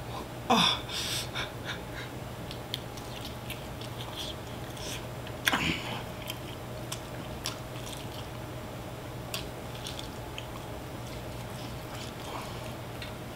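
A person eating fried chicken drumsticks by hand: chewing and biting with scattered small wet clicks and smacks, a few louder ones about half a second in and again near the middle. A steady low hum runs underneath.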